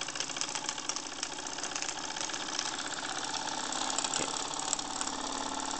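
Late-1970s Wilesco toy live-steam stationary engine running steadily under steam, with a rapid, even chuffing beat.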